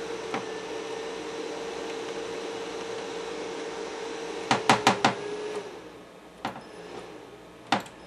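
Chauvet Intimidator light fixture running with a steady hum. Several sharp clicks come as the power plug is wiggled, and about five and a half seconds in the hum slides down in pitch and dies away as the fixture loses power: the loose power plug is still cutting out despite its electrical-tape wrap.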